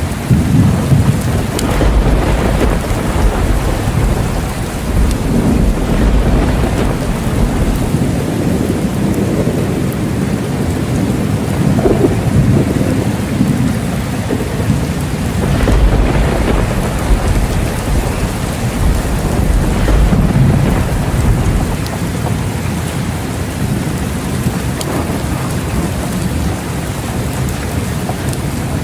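Steady heavy rain with low rolling thunder rumbling several times: the strongest roll comes at the start, and further rolls swell and fade through the rest of the sound.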